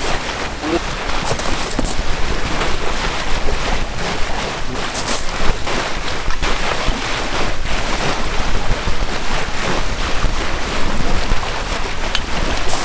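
Wind buffeting the microphone over small waves lapping on a pebble lakeshore, the level rising and falling unevenly.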